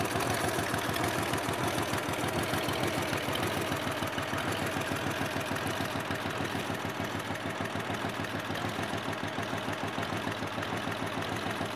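Dnepr MT16 motorcycle's 650 cc flat-twin engine idling steadily, with a rapid even pulse.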